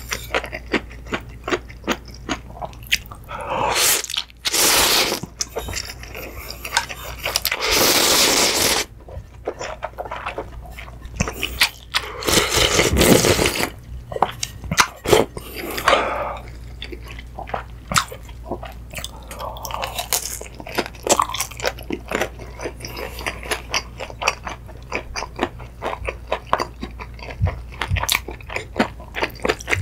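A person eating thick spicy seafood ramyun noodles: wet chewing with many small clicks, broken by about four longer slurps of noodles and broth from a large spoon, the longest a little before the middle.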